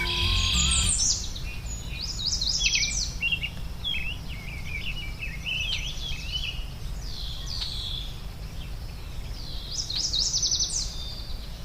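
Songbirds singing and chirping in a meadow: many short twittering phrases and quick trills, with brighter bursts near the start and again near the end. A steady low background hum runs underneath, and soft musical tones fade out about a second in.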